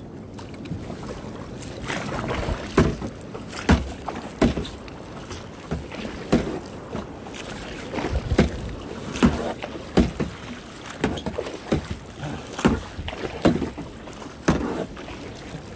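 Kayak paddle strokes splashing into the sea, one sharp splash roughly every second, over steady wind and water noise.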